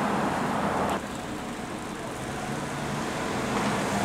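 Road traffic noise: a steady wash of car sound from the street. It drops about a second in, then grows louder again toward the end.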